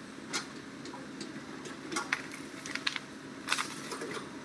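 Hitachi crawler excavator's diesel engine running steadily, with scattered sharp clacks of stone as the bucket works the rocky ground. The loudest clack comes about three and a half seconds in.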